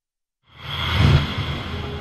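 A news-bulletin transition sting: silence for about half a second, then a whoosh that swells into music, loudest about a second in, then slowly fading.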